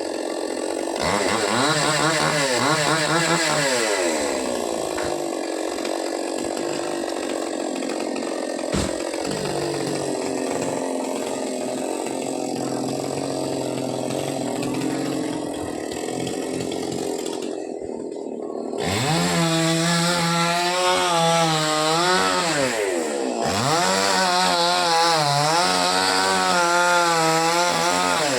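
Two-stroke chainsaw cutting into a coconut palm trunk, its engine revving up under load in long runs: about a second in, again after about nineteen seconds, and once more near the end, running lower and steadier in between.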